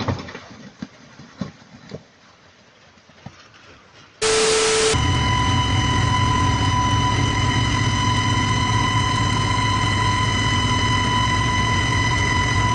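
Scattered knocks and clatter as a loaded dump truck tips over backwards. After about four seconds a locomotive horn sounds, held loud and steady as one tone with a stack of overtones over the low rumble of the moving train.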